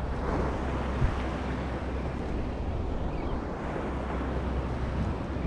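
Steady rush of wind and sea on open water, with wind buffeting the microphone in a low rumble. A single small knock about a second in.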